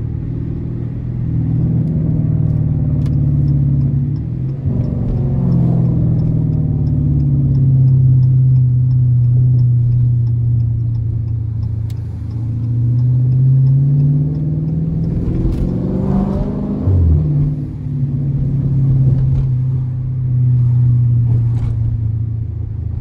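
Dodge R/T's V8 engine running under way, its revs rising and falling with the throttle, with a sharper climb and drop about two-thirds of the way through.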